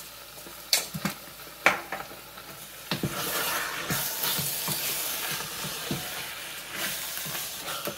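A few sharp knocks, then a wooden spoon stirring browned beef goulash with onions and tomato paste in a hot stainless steel pot. From about three seconds in, the meat sizzles steadily under the spoon.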